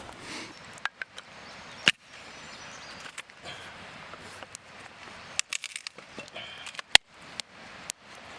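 Cooking fire crackling, with scattered sharp pops; the loudest come about two seconds in and about seven seconds in.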